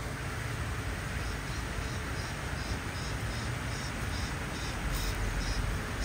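Outdoor city ambience: a steady low rumble with a regular high-pitched chirping, about two or three chirps a second.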